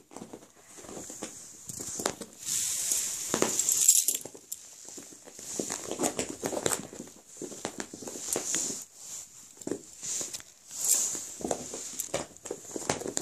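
A cat's paws scampering, skidding and pouncing on carpet as it chases a laser pointer dot: irregular soft scuffs and thumps, busiest a few seconds in and again near the end.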